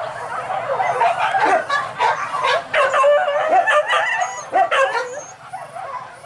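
A pack of hunting dogs barking and yelping, many short calls overlapping, thickest through the middle and thinning near the end.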